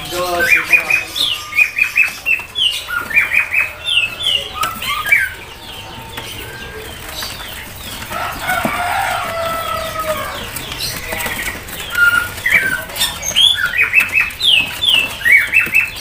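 Caged songbirds chirping and calling: quick runs of short high notes in clusters, with a longer whistled call in the middle.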